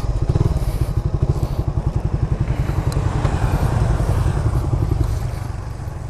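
Suzuki Satria F150 Fi's single-cylinder four-stroke engine running at low revs, a rapid, even pulsing that eases off a little near the end.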